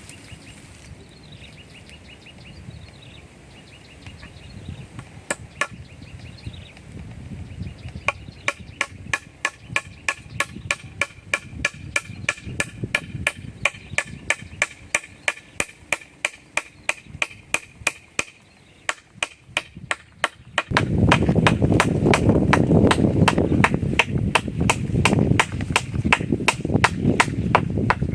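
Steady, evenly spaced blows of a tool striking wood, about two a second, each with a short ring, during treehouse building. The blows start about a third of the way in. Near the end a loud low rushing noise joins them.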